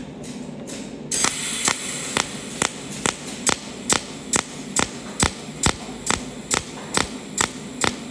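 Cold welding machine's tungsten torch firing a steady train of arc pulses, a sharp snapping click a little more than twice a second, starting about a second in, over a faint hiss. Each pulse lays one overlapping weld spot in continuous welding at a pulse current of 35.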